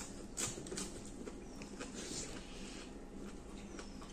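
People eating by hand: chewing and lip smacks, with a scatter of short soft clicks as fingers mix rice and food on steel plates.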